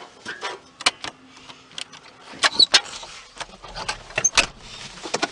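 A string of sharp, irregular clicks and clanks, loudest about halfway through, over a faint steady low hum, like rattling machinery or parts being handled.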